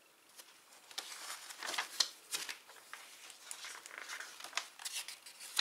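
Pages of a paper sticker album being turned and handled: a run of rustling and crinkling with a few sharp paper snaps, starting about a second in.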